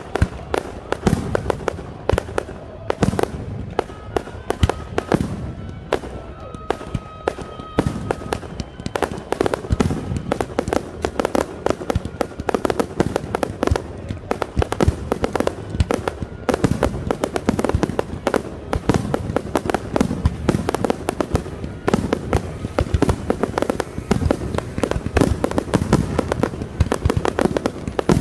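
Aerial fireworks display: a continuous barrage of shells bursting in booms and crackles, overlapping one another, thickening into a denser, louder volley about halfway through.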